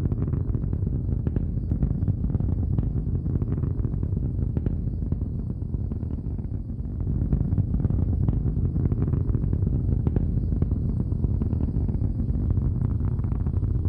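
Deep, continuous rumble with scattered crackles, a sound effect for a space capsule's fiery atmospheric re-entry; it grows a little louder about seven seconds in.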